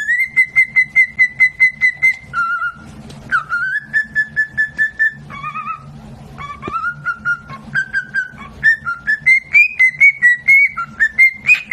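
A parrot whistling fast runs of short, clear notes, about six a second, holding one pitch for a couple of seconds and then stepping lower or higher, climbing near the end. A steady low hum runs underneath.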